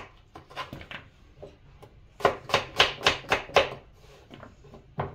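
Crinkle-cut knife slicing through raw potatoes and knocking on a wooden cutting board, one cut after another. A few cuts come in the first second, then a pause, then a quick run of about six cuts, roughly three or four a second, in the middle.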